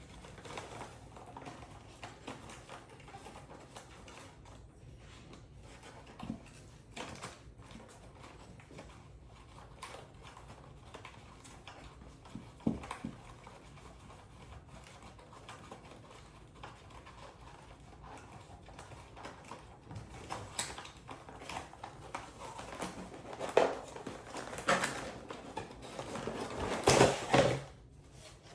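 Hands handling a plastic toy and its packaging: scattered small clicks and knocks, with a louder cluster of handling noises near the end.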